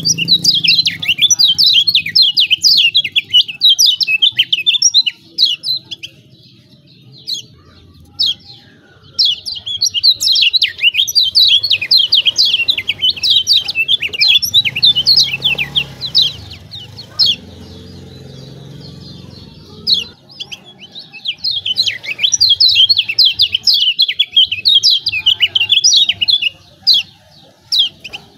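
Kecial kuning (yellow white-eye) giving its rapid, excited 'ciak ciak' chatter, a dense run of high, quick chirps in three long bouts with short pauses between them. It is used as a lure call to provoke other kecial kuning into singing.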